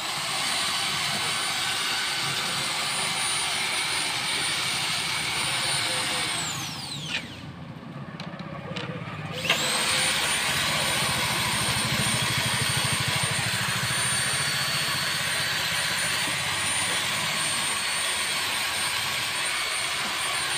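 High-speed handheld electric power tool running against wood, a steady high whine. About six and a half seconds in it is switched off and winds down with a falling whine, then about nine and a half seconds in it starts again with a quickly rising whine and runs steady.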